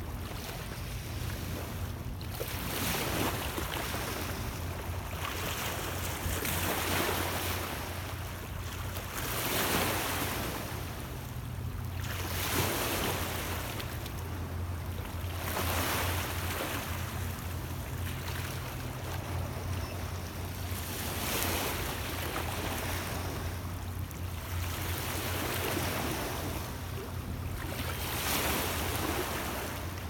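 Small Lake Ontario waves washing in over a stony shore, one swell of splash every two to three seconds, over a steady low rumble of wind on the microphone.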